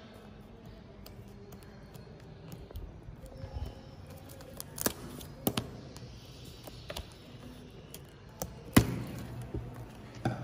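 Scissors cutting the plastic twine tied around a stack of books, with rustling and a handful of sharp clicks and knocks as the bundle is handled; the loudest knock comes a little before the end.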